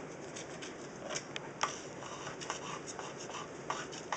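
Blade scraper scraping old silicone off aquarium glass: short, irregular scratching strokes with small clicks.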